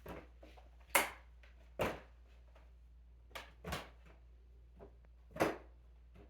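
Five or so short, sharp knocks or clacks at irregular intervals, the loudest about a second in, over a faint steady hum.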